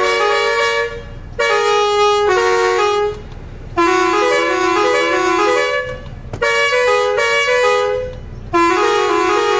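Mewati musical car horn playing a melody: phrases of quick stepping notes, broken by short pauses about every two seconds.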